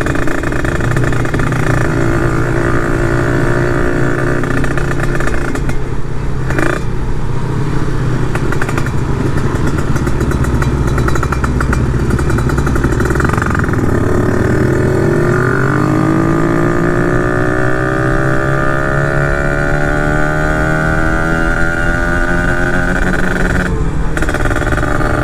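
Motorcycle engine running under way. About halfway through, its revs climb steadily for some ten seconds as the bike accelerates hard.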